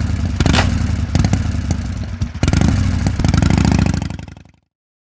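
Harley-Davidson V-twin motorcycle engine running and being revved, rising and falling in pitch, then cutting off suddenly a little over four seconds in.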